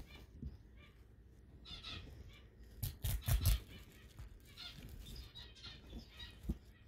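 Rustling of artificial silk flowers and leaves being handled and pushed into a centerpiece, with soft knocks against the table. The loudest is a cluster of thumps about three seconds in, and another knock comes near the end.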